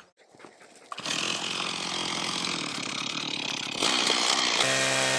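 Chainsaw cutting into the dead, rotten wood of an old olive trunk, starting about a second in and running steadily. Guitar music comes in over it near the end.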